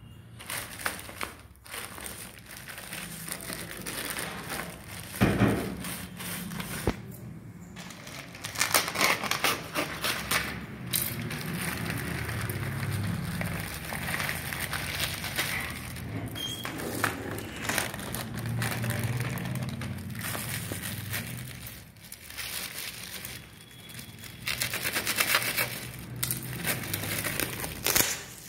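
Plastic courier mailer and plastic wrap crinkling and rustling as a parcel is opened by hand, with a few louder crackling bursts.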